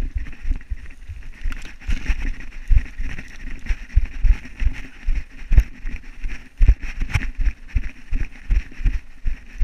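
Footsteps and jolts of a body-worn camera, irregular heavy thumps about two a second, over a steady rustle as a hunter moves through dry scrub.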